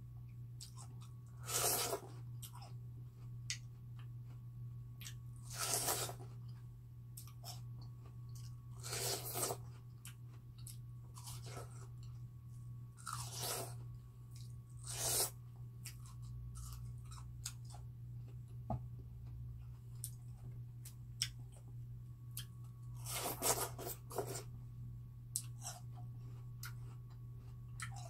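Crisp, crunchy bites into a slice of raw watermelon, with wet chewing between them. A loud bite comes every few seconds.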